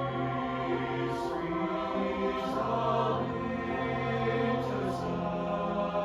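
Mixed choir singing, many voices holding sustained chords in parts, with sung 's' consonants hissing briefly a few times.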